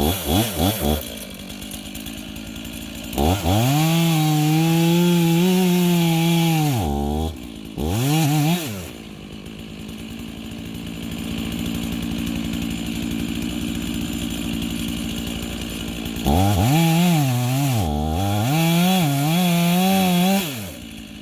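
Stock two-stroke gas chainsaw switching between idle and throttle. It blips quickly at first and settles to idle, then holds high revs for about four seconds with a short rev after. After a long idle it revs again in wavering surges near the end and drops back to idle.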